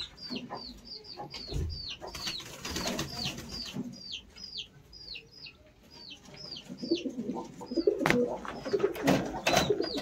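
A pigeon squab peeping: short, shrill calls that slide downward in pitch, repeated about two or three times a second, with low cooing from the adult pigeons under them. In the last couple of seconds, sharp clicks and a rattle of a wire cage being handled come in.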